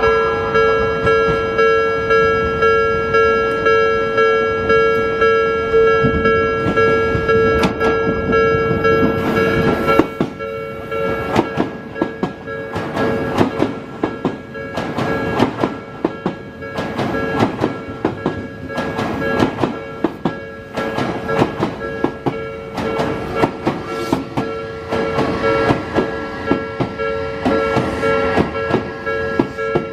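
Japanese level-crossing alarm bell ringing with an even repeating ding. From about ten seconds in, an Odakyu 3000 series electric train runs over the crossing, its wheels clattering over the rail joints under the bell.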